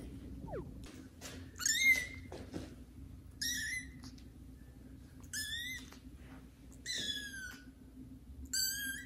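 Young kitten meowing loudly and over and over: five high-pitched meows about one and a half seconds apart, the first of them the loudest.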